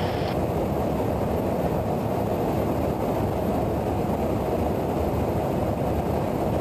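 Steady low roar of airflow and jet engines heard inside a KC-135 tanker in flight, even in level with no changes.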